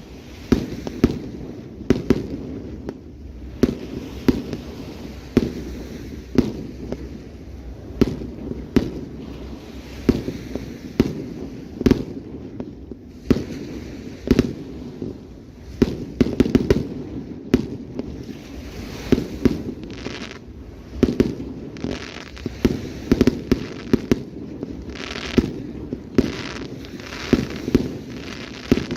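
Fireworks display: aerial shells bursting in a rapid, irregular series of bangs, about one or two a second, with crackling from the bursts growing denser in the second half.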